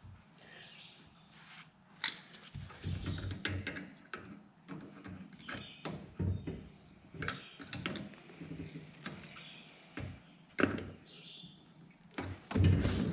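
Scattered knocks, clicks and clatter at uneven intervals, from hands and tools working on a plastic dump cart's newly fitted wheel.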